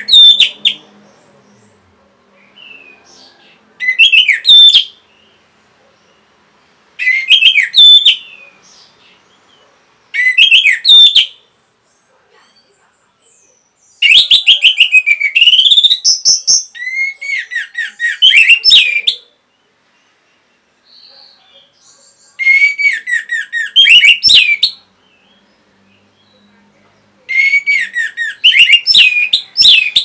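Orange-headed thrush (anis merah) singing loudly in bursts of rapid whistled notes that glide up and down. The phrases last one to two seconds and come every few seconds, with one longer phrase of about five seconds midway.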